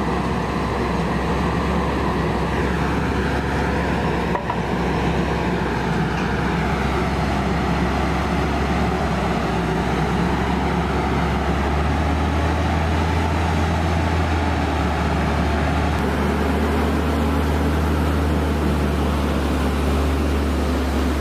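Aircraft tow tractor's engine running steadily as it tows a KC-10A tanker, a low drone that grows stronger about halfway through.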